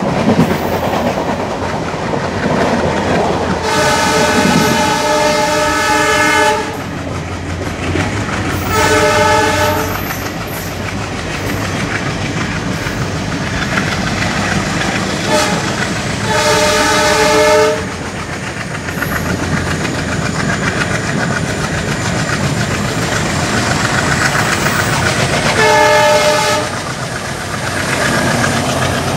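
Passenger train of ICF coaches running at speed, with the steady rumble and clickety-clack of wheels over the rail joints. The twin Alco WDM3A diesel locomotives' air horn sounds four times: a long blast about four seconds in, then shorter blasts near nine, seventeen and twenty-six seconds.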